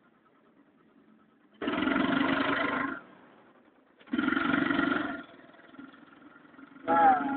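A vehicle sounding in two loud bursts of about a second each, starting and stopping abruptly, with a shorter sound that slides in pitch near the end.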